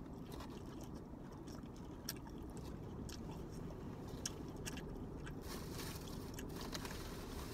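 People chewing and crunching lettuce salad close to the microphone, with scattered small clicks and scrapes of plastic forks against plastic salad containers, over a steady low hum.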